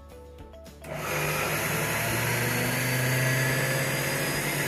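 Electric mixer grinder with a steel jar pulse-grinding dry roasted sesame seeds and peanuts: after a short lull the motor starts again about a second in, runs steadily, and spins down near the end.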